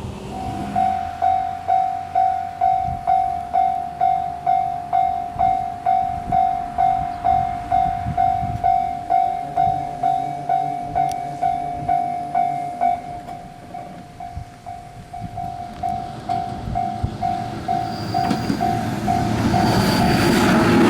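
Railway level crossing warning alarm ringing its repeated clang, about two and a half strikes a second, growing softer past the middle. Near the end the rumble of an approaching train swells up.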